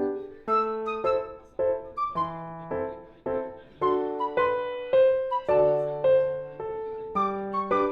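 Background music: a gentle piano melody of struck notes over low bass notes.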